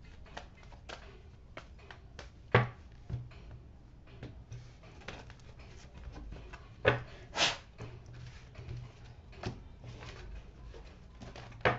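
A tarot deck being shuffled by hand: a run of light card clicks and rustles, with a few sharper taps as the cards are knocked together and a card is laid down on the cloth-covered table. A faint low hum runs underneath.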